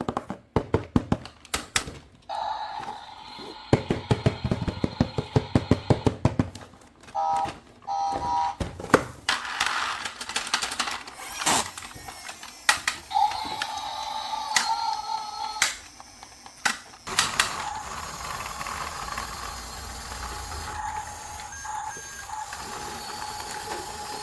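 Plastic toy vehicles being handled and played with: fast runs of clicking and rattling plastic parts, and a steady tone that switches on and off several times.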